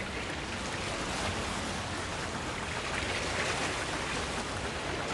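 Steady outdoor waterside ambience: an even wash of sea water and wind noise over open water.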